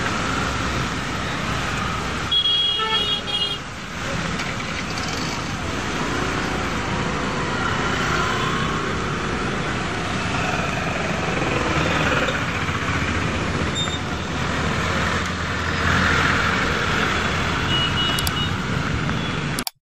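Street traffic noise on a flooded road: a steady wash of vehicle and water noise, with a short vehicle horn toot about two and a half seconds in. The sound cuts off abruptly just before the end.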